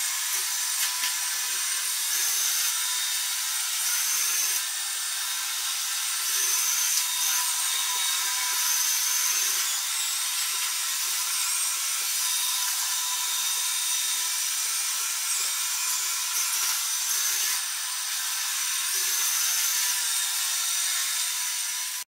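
Xiaomi Mi Robot Vacuum Mop Essential running on a tile floor, its suction fan and brushes making a steady airy whine with a few faint high tones. It cuts off suddenly at the end.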